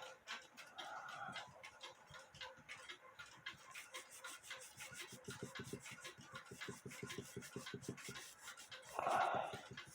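Rapid back-and-forth scrubbing strokes on a rusty metal clock movement being hand-cleaned with furniture cleaner, at about eight to ten strokes a second, with a short louder sound near the end.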